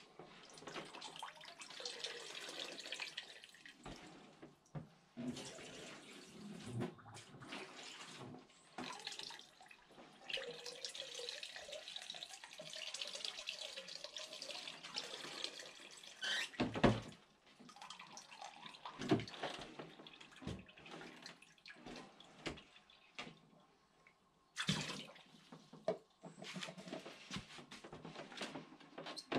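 Water poured into a motorhome foldaway basin drains down the reconnected drain pipe and splashes into a plastic bucket, in several runs with short pauses: a test pour showing the drain works. A sharp knock comes a little past halfway.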